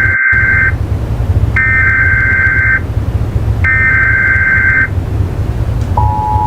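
Emergency Alert System tornado-warning broadcast: three buzzy, screeching bursts of SAME digital header data, each about a second long. About six seconds in, the steady, harsh two-tone attention signal begins, announcing the warning message to follow. A low hum runs underneath.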